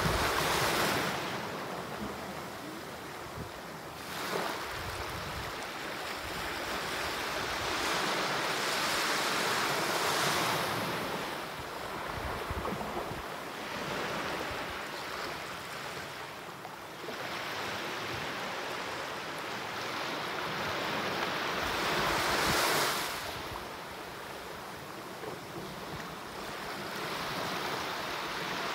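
Small waves breaking and washing up a sandy shore, the surf swelling louder and fading every several seconds, loudest about two-thirds of the way through.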